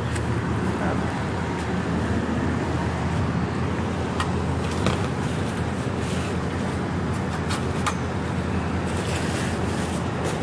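Steady low rumble of a running motor vehicle, with a few sharp clicks and knocks from trash being poked and shifted in a dumpster.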